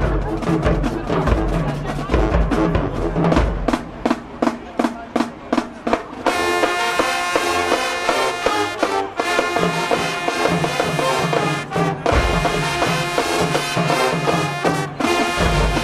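High school marching band playing live. At first the drums play short, evenly spaced hits; about six seconds in, the brass section comes in with sustained chords over the percussion.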